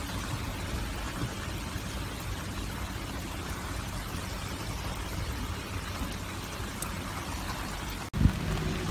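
Steady rain falling, an even hiss. Near the end the sound cuts out for an instant, then a loud short knock and a low steady hum follow.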